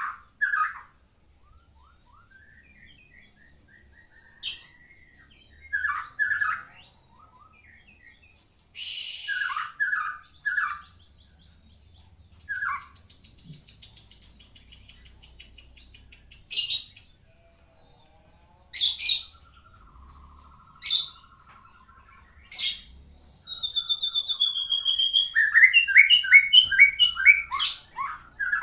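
White-rumped shama (Medan murai batu) singing a varied song of short whistled phrases, sharp high notes and fast trills, full of mimicked phrases. Near the end it breaks into a long, loud run of rapid repeated notes.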